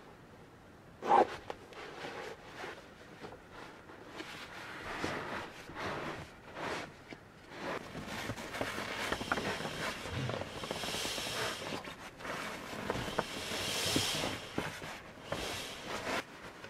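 Camping mat being rolled up and pressed down by hand, its fabric rustling and scuffing, with a single sharp knock about a second in.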